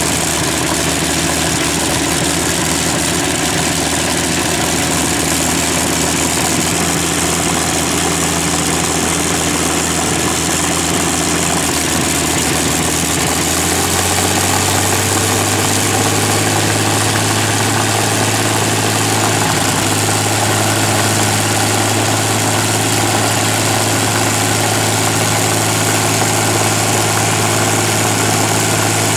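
Rolls-Royce Merlin 27-litre V12 aero engine running steadily. About halfway through its speed steps up and then holds at the higher pitch.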